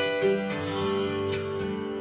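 Recorded music played back through open-baffle loudspeakers with AER full-range drivers: a song opening on plucked and strummed acoustic guitar notes.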